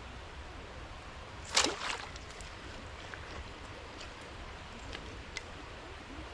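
Steady rush of running creek water, with one sudden short, loud noise about a second and a half in, followed by a few faint clicks.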